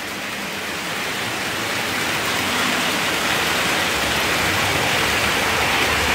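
Hattons OO gauge Class 66 model diesel locomotive running along the track: a steady rushing of wheels on rail and motor that grows gradually louder, then cuts off abruptly at the very end. It runs smoothly, with no grinding.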